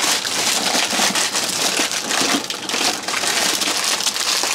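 Clear cellophane wrapping crinkling and crackling as it is handled and pulled off a camping stove: a continuous run of small, sharp crackles.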